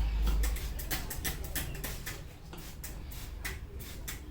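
Barber's hands working the scalp and hair in a head massage, making a quick run of sharp snapping clicks, several a second. A low rumble fades out in the first half-second.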